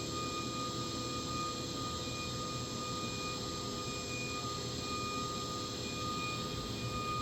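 Hurco VMX50i CNC vertical machining center running under power: a steady high whine over a constant machine hum and hiss.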